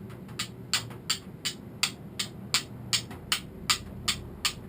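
A hand-forged flint striker of hardened file steel struck against a flint in a steady rhythm, about three sharp clicks a second. This tests whether the hardened steel throws sparks.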